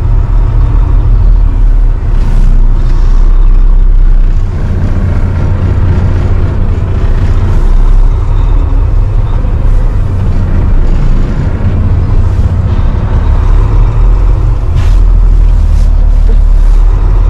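Truck engine and road noise heard from inside the cab while driving: a steady, heavy low drone.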